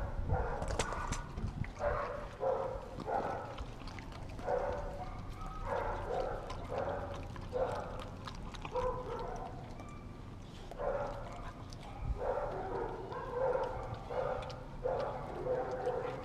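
Dog barking and yipping in short pitched calls, repeated over and over in quick clusters.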